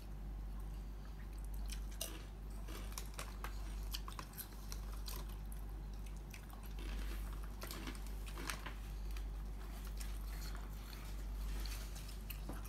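A person chewing and biting pizza crust close to the microphone, with irregular crunchy clicks, over a steady low hum.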